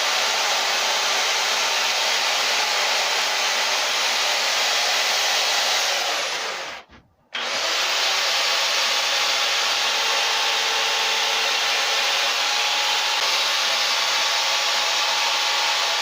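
Carving chainsaw running at a steady high speed as it cuts into wood, shaping the top of the eye. It stops briefly about seven seconds in, then runs again.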